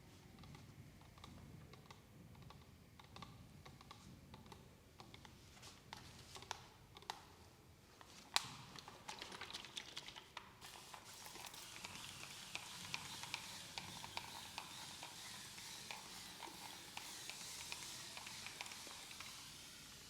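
Close-miked ASMR handling sounds: many small soft clicks and scratches, thickening into a steady crackling hiss from about halfway through, with one sharp click about eight seconds in.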